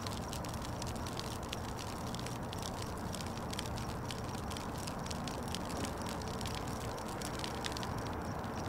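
Fire crackling in a burn barrel: a steady rushing burn with many quick small pops and crackles.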